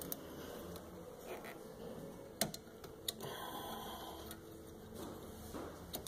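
Scattered small metallic clicks and taps as the parking brake cable and its coil spring are worked back onto the rear brake caliper by hand. Two sharper clicks stand out about two and a half and three seconds in.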